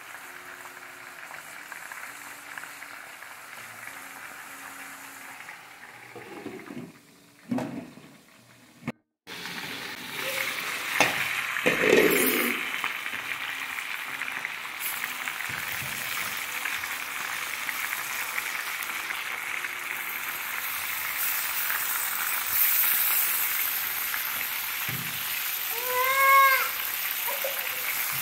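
Chicken pieces and small potatoes frying in a pan, sizzling steadily from about ten seconds in after a quieter start. There is a knock about twelve seconds in, and near the end a brief pitched sound that rises and falls, the loudest moment.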